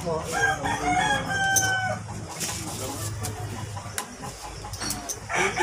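A rooster crows, one call of about two seconds, and a second crow begins near the end, with a few light clicks between.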